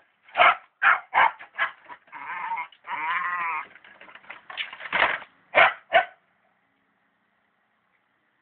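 Dog barking in a quick run of short, sharp barks, with a drawn-out, wavering howl about three seconds in; the barking stops about six seconds in.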